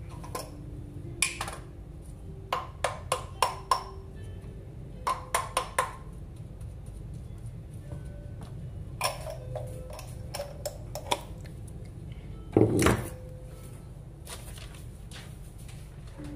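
Kitchen clatter of cooking utensils against a frying pan and a small glass jar: quick runs of four or five sharp taps and clinks, scattered single clicks, and one louder knock near the end, over a steady low hum.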